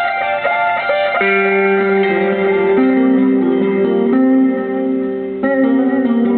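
Guitar music: quick high plucked notes give way about a second in to lower, longer held notes that shift pitch every second or so.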